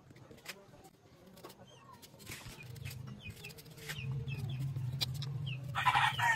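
Chickens clucking, with short high chirps and a louder call about six seconds in. A few sharp clicks of a knife cutting through green mango.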